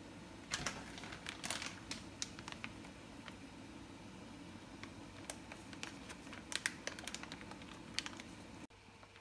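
Water boiling in a frying pan, a steady low bubbling with scattered sharp pops and the crinkle of plastic zip-top bags of chicken breast being lowered into it. The bubbling drops away abruptly near the end.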